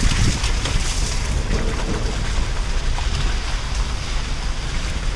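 Wind buffeting a phone's microphone outdoors, a steady, loud, fluctuating low rumble under a steady hiss.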